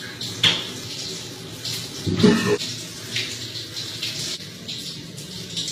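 Electric shower running, water spraying steadily onto a person inside a glass shower cubicle, with a short vocal sound about two seconds in.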